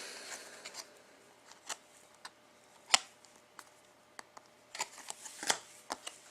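Trading cards being handled: scattered soft clicks and taps as cards are slid and set down, the sharpest click about three seconds in.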